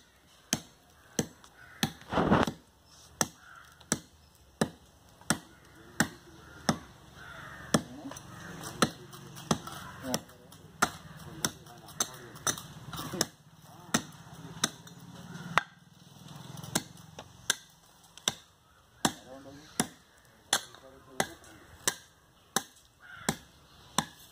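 A laterite block being trimmed by hand with a short-handled axe: sharp chops at a steady pace, about one and a half a second, with one louder, longer knock about two seconds in.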